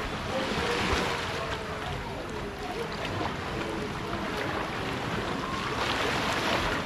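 Wind buffeting the microphone and water rushing and splashing past a boat, a steady noisy wash.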